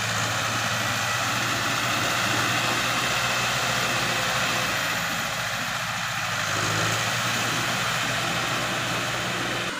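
A 105-horsepower CHAMP rubber-tracked tractor's diesel engine running steadily under load, with its rear rotary tiller working through wet mud.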